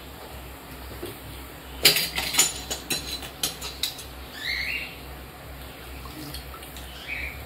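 Several sharp clicks and knocks of kitchen utensils between about two and four seconds in, then a bird chirping twice.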